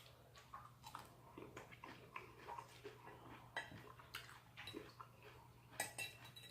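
Faint chewing of a mouthful of chicken salad, with scattered soft clicks and mouth sounds; a slightly sharper click comes near the end.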